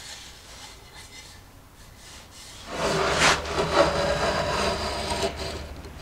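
Stanley hand plane shaving the edge of a beech worktop to round it off. A few rasping strokes start about halfway in.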